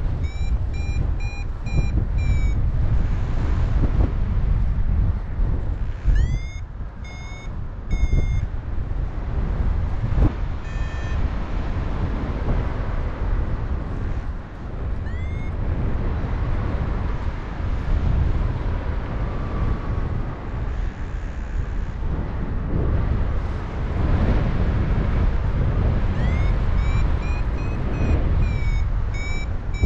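Paragliding variometer sounding its climb tone: runs of short, evenly spaced beeps, each run opening with a rising swoop, that come and go several times and return near the end. The climb tone signals that the glider is rising in lift. Heavy wind rush on the microphone runs underneath.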